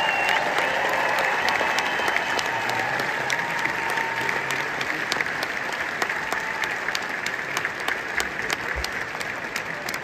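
A large audience in a big concert hall applauding steadily, slowly easing off toward the end.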